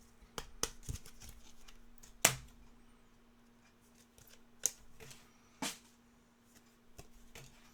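Trading cards and pack wrappers being handled: scattered light clicks and soft rustles, the sharpest about two seconds in, over a faint steady hum.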